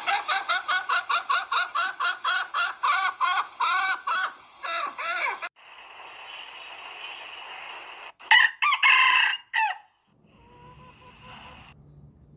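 Chickens clucking in a fast run of short calls, about five a second, that slows down and breaks off abruptly. About eight seconds in, a rooster crows briefly and loudly.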